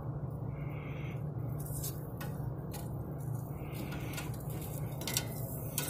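Metal barbecue tongs clicking against a charcoal grill's grate and the chicken drumsticks as they are turned, a few sharp clicks spread through, over a steady low hum.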